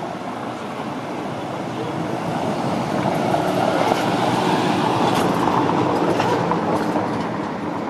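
A Mercedes-Benz open-top sightseeing minibus drives past close by on a stone-paved street. Its engine and tyre noise swell, are loudest around the middle, and fade near the end.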